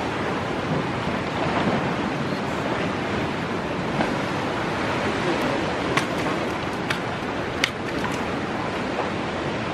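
Sea surf washing and breaking against rocks, a steady rushing wash, with a few sharp clicks in the second half.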